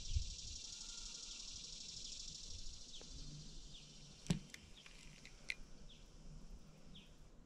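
Quiet open-air ambience by a lake: a steady high-pitched hiss, a few faint short bird chirps, and two sharp clicks about four and five and a half seconds in.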